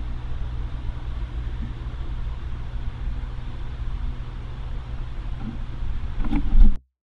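Steady low rumble, with a few soft knocks about six seconds in, then the sound cuts off suddenly into silence.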